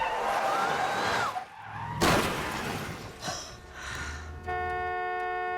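Car tyres screeching under hard braking, then a crash about two seconds in as the car is hit, a short clatter after it, and a car horn sounding steadily from about four and a half seconds in.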